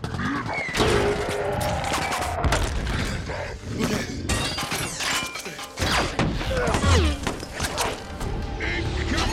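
Action-film battle sound mix: a dramatic score under repeated crashes, booms and explosions, with sliding metallic whirs of giant robot machinery.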